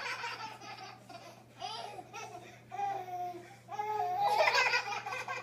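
Toddlers babbling and laughing in short bursts, with a louder run of giggling about four seconds in.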